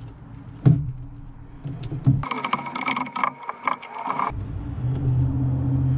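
A rotary cutting tool, a Dremel with a cutting blade, whirs through material for about two seconds in the middle, with steady high tones. Before and after it there is a steady low hum with a few sharp knocks.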